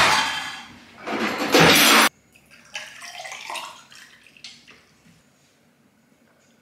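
Water running from a kitchen tap into a stainless steel sink, cutting off abruptly about two seconds in. Then water is poured from a large plastic bottle into a glass, more quietly, for about a second.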